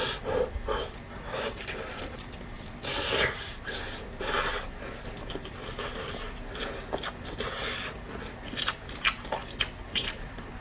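Close-miked eating: irregular wet chewing and mouth smacks, with a few sharp clicks and a couple of louder bursts.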